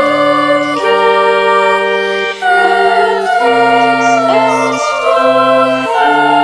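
Girls' chapel choir singing a slow carol in held, changing chords, over sustained low instrumental accompaniment.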